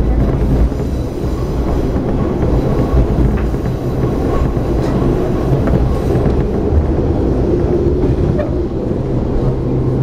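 KiHa 52 diesel railcar running, heard from inside the cabin: a steady diesel engine drone and the rumble of wheels on the track, with a few faint clicks from the rails.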